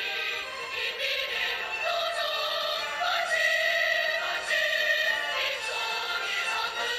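A choir singing with musical accompaniment, in long held notes, played from a television's speaker so that it sounds thin, with little bass.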